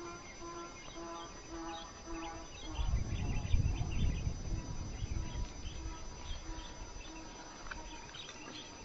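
Outdoor ambience of small birds chirping, with a low rumble on the microphone from about three seconds in.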